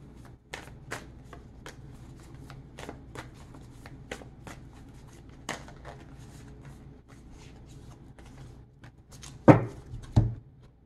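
Tarot cards being shuffled by hand, an irregular patter of light card clicks, with two louder knocks near the end.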